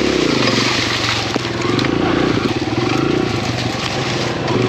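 Kawasaki KLX140RF dirt bike's single-cylinder four-stroke engine running at low revs, dropping off just after the start and then working with small throttle blips. Over it, leaves and branches scrape and crackle against the bike as it pushes through thick brush.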